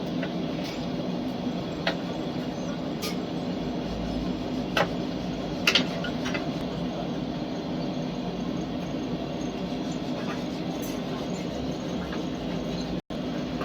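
Steady mechanical hum of a running machine, with a few sharp clicks and taps over it.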